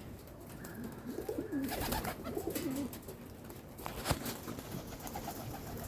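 Young cockatoo making low, wavering droning calls, with a sharp click about four seconds in.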